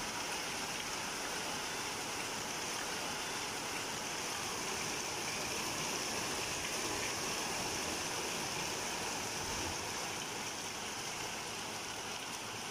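Heavy rain pouring down steadily, a constant even hiss.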